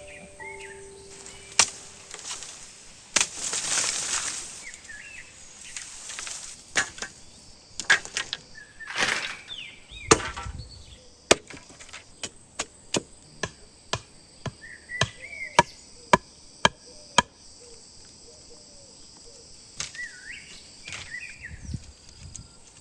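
Wood being chopped: a run of sharp blows about two a second in the middle, with rustling swishes before them. Insects buzz steadily and birds chirp in the background.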